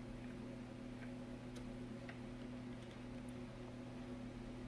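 Faint steady electrical hum with a few light ticks; about three seconds in a sharp click, and soon after a thin high-pitched whine starts and holds, rising slightly, as the Macintosh Color Classic analog board is switched on and its flyback transformer comes up to high voltage.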